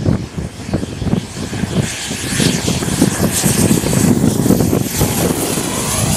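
Model jet turbine on an RC Eurofighter Typhoon coming in low on its landing approach. Its high whine and hiss build as it nears and pass about four seconds in, then the tone falls slowly in pitch as it moves away. Heavy wind noise on the microphone rumbles underneath.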